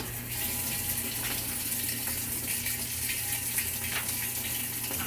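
Water rushing into a Whirlpool top-load washer's tub through its inlet valve as the diagnostic test opens the hot and cold valves. It is a steady gushing hiss that starts suddenly, over a low hum.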